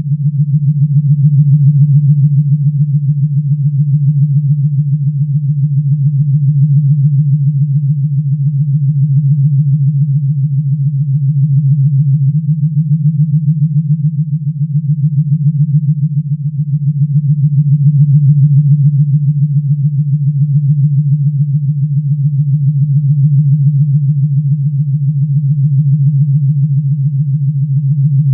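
Low synthesized hum from a Star Trek sound effect, with a fast, even pulse and slow swells in loudness every few seconds.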